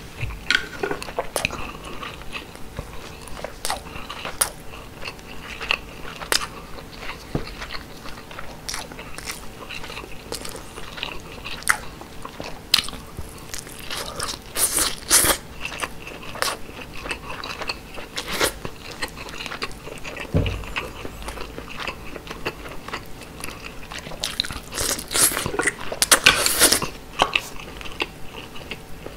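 Close-miked chewing and mouth sounds of someone eating grilled mackerel with white rice: a steady run of short, wet clicks, with denser bursts about halfway through and again a few seconds before the end.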